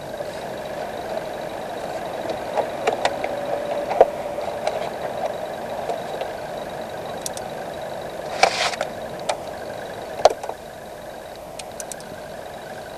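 Car engine running steadily, heard from inside the cabin while driving, with a few sharp clicks and knocks, the loudest about four seconds in and a short rattle around eight and a half seconds in.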